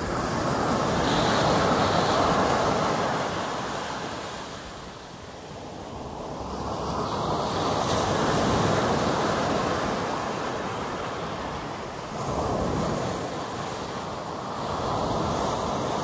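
Sea waves breaking and washing up a sandy, pebble-strewn beach, the surf rising and falling in two or three long surges.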